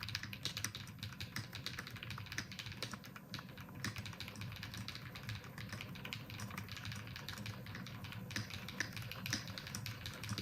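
Typing on a CIY GAS67 mechanical keyboard fitted with KTT Wine Red linear switches, stock and unmodded: a rapid, steady clatter of keystrokes.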